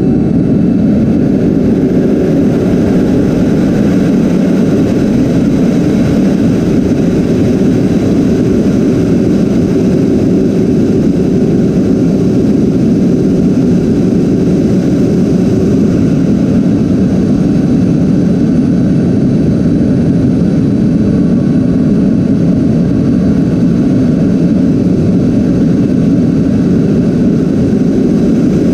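Twin electric ducted fans of a Freewing A-10 RC jet running steadily in flight, a loud dense rush heard from a camera inside the cockpit.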